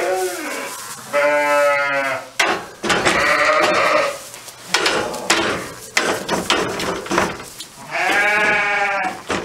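Sheep bleating four times, two of the calls about a second long, with short rustles and knocks between them.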